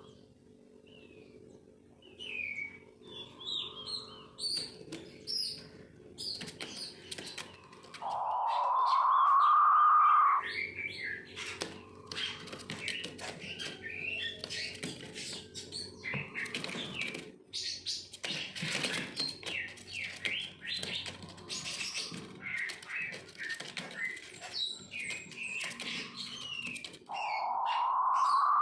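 King quail giving its drawn-out, rasping 'ngorok' call, about two seconds long and slightly rising, about eight seconds in and again near the end, among many short high chirps.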